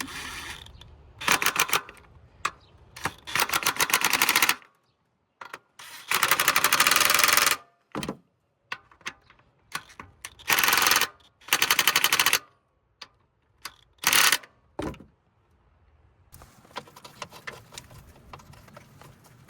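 Power impact wrench hammering on suspension bolts in about six short bursts, each a rapid run of blows lasting up to a second and a half, with pauses between.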